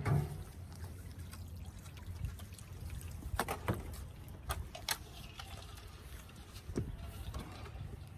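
Water trickling steadily, with a few short clicks scattered through the middle.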